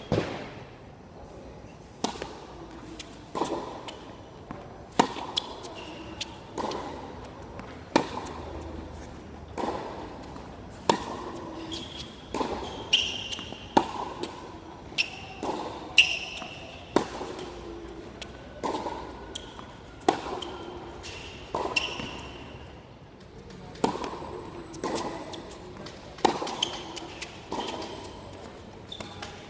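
Tennis rally on a hard court: sharp racket strikes and ball bounces, a steady exchange of impacts roughly once every second or so.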